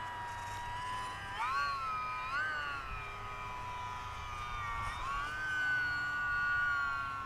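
Electric motor and propeller of an E-Flite UMX Pitts S-1S micro RC biplane in flight on a 2-cell 7.4 V battery, giving a steady high whine. The pitch rises briefly twice, about one and a half and two and a half seconds in, then rises again about five seconds in and holds higher until near the end.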